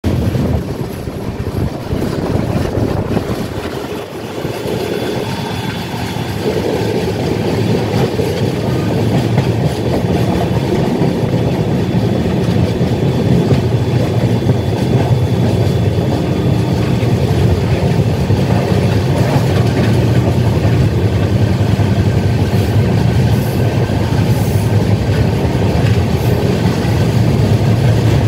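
Double-decker AC express train running at speed: a steady rumble of wheels on the track, with a faint high whine for roughly the first half.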